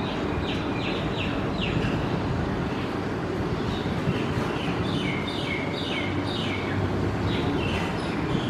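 Birds chirping: runs of short, quick, falling chirps, one run in the first two seconds and a denser run around the middle and later part, over a steady low rumble.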